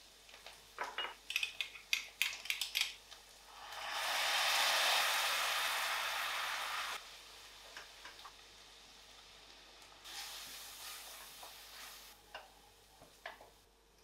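Food sizzling in a stainless steel frying pan while a wooden spoon stirs and scrapes it. A run of sharp clicks and taps comes in the first few seconds, then a loud burst of sizzling lasts about three seconds, with a weaker stretch of sizzling and a few more taps later on.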